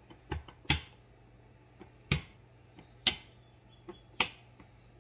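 Rolling pin knocking against a wooden butcher-block counter while pie crust dough is rolled out: about five sharp knocks, irregularly spaced.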